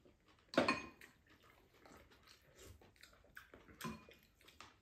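Wooden chopsticks tapping and scraping against ceramic rice bowls while eating, as a string of light clicks with a couple of sharper clinks.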